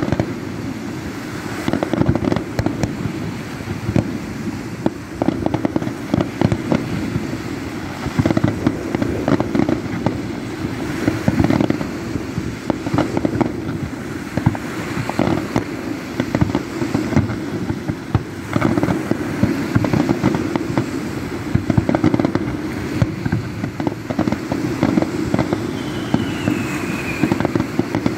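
Fireworks display: a rapid, continuous series of aerial shell bursts and crackling, over a steady low rumble.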